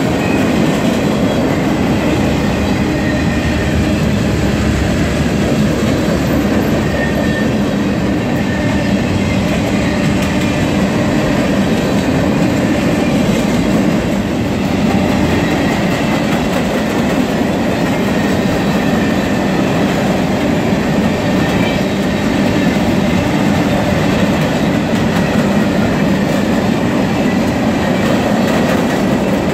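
Freight train's cars, open-top hoppers and gondolas, rolling past close by: a loud, steady rumble of steel wheels on rail.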